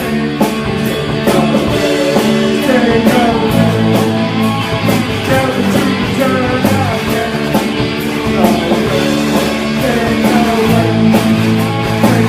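Rock band playing: electric guitar with bending lead lines over a steady drum beat and a sustained low bass part.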